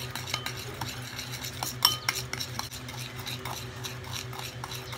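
A spoon rapidly beating dalgona coffee mixture (instant coffee, sugar and hot water) in a ceramic bowl, whipping it toward a foam: a quick run of scraping and clinking against the bowl, with one louder ringing clink about two seconds in.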